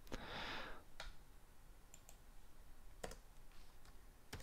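Faint clicks from a computer mouse and keyboard: four sharp, separate clicks spread out over a few seconds, with a short soft hiss near the start.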